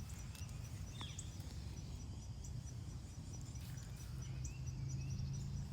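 Outdoor ambience: a cricket-like insect trilling steadily in short, evenly spaced high pulses, with a few bird chirps, one about a second in, over a low steady rumble.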